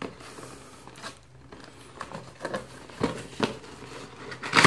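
Cardboard retail box being handled and opened by hand: scattered scrapes, rubs and light taps, the loudest near the end.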